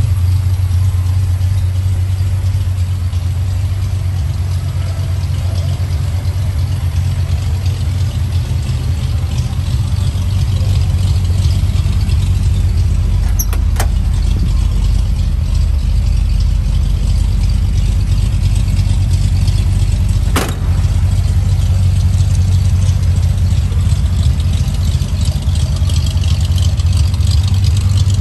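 1963 Ford Falcon's engine idling steadily, with two short clicks about 13 and 20 seconds in.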